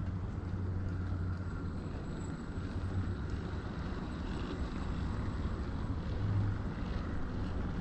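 OO gauge model train running along the track: a steady low motor hum with the rumble of wheels on the rails, swelling a little as it goes.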